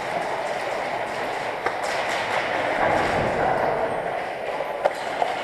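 Steady noisy din of an indoor airsoft game, broken by a couple of sharp clicks or knocks.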